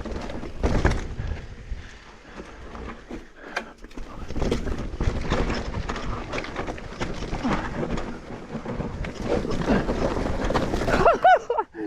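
Mountain bike descending a rough downhill trail: tyres on dirt with frequent knocks and rattles from the bike over roots and rocks, and wind buffeting the microphone. A short vocal sound from the rider near the end.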